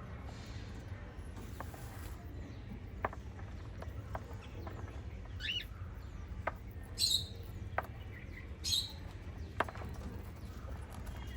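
Small pet parrots giving a few scattered calls: one short chirp that rises and falls about halfway through, then two short harsh calls a couple of seconds apart. A few light taps and a steady low hum run underneath.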